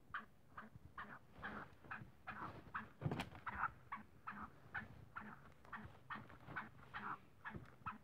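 Black francolin making soft, quick clucking notes, about three or four a second, with a single sharper knock about three seconds in.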